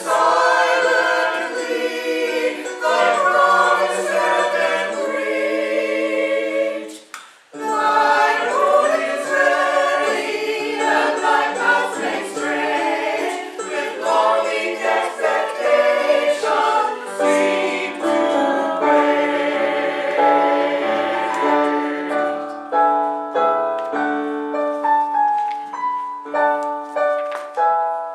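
Church choir of mixed men's and women's voices singing an anthem, with a short break about seven seconds in before the singing resumes.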